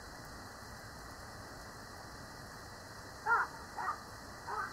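Steady rain falling, with three short bird calls in quick succession near the end.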